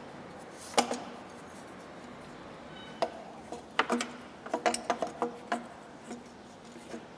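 Sharp clicks and knocks of hand-handled engine parts: a single knock about a second in, then a quick run of clicks and clatters between about three and five and a half seconds, as the thermostat and the large coolant hose of a BMW 320d diesel are fitted back in place.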